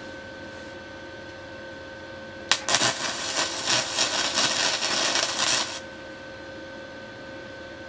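Stick (arc) welding on steel: the electrode strikes an arc with a sharp crack about two and a half seconds in, then crackles and sizzles for about three seconds before the arc is broken off. A faint steady hum runs underneath throughout.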